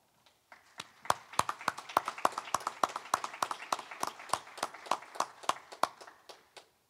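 Small audience applauding: a handful of people clapping, with the separate claps distinct. It starts about half a second in and dies away near the end.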